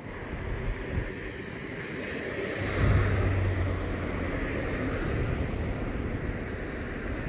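A car passing on the road, its engine and tyre noise rising to loudest about three seconds in, then easing off gradually.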